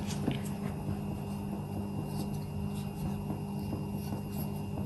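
Faint soft pats and rustles of hands pressing the sealed edges of a stuffed paratha's dough and dusting it in dry flour, over a steady low hum.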